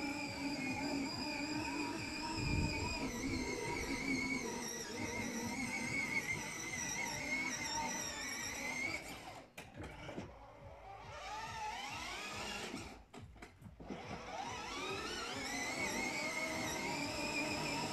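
Electric ride-on toy car's drive motor whining, its pitch wavering as the car drives. The whine cuts out about halfway through and again a few seconds later, each time winding back up in pitch as the car pulls away.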